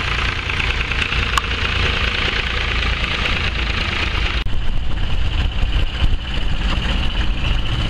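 Vintage International tractor's engine running steadily as it drives slowly across the grass; about halfway through the sound changes abruptly to a Land Rover Series station wagon's engine running as it drives close past.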